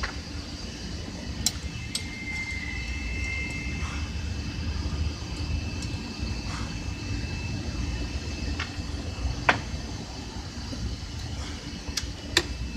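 Workshop background: a steady low hum with a faint high tone, broken by a handful of sharp metallic clicks and clinks. The clicks come in a pair near the start, one loud one past the middle, and two close together near the end.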